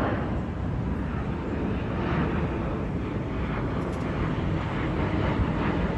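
Airliner engines running, a steady low rumble.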